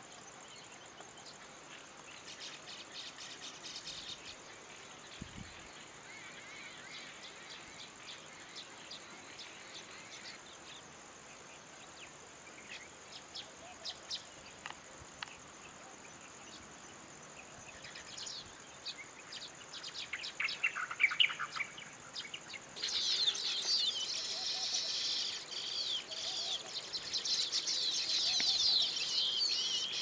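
Baya weavers chirping: scattered short, high chirps at first, building into dense, loud chattering in the last third.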